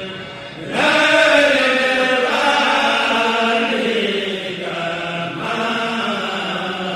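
Chanted recitation of an Arabic xassida, a Sufi devotional poem, sung in long held melodic lines. A new phrase comes in loudly just under a second in.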